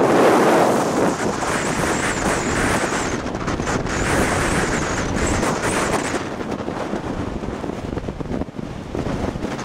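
Storm wind of about 100 km/h rushing over the microphone in a loud, unbroken rumbling hiss, with no rhythm or tone in it; the upper hiss eases somewhat about six seconds in.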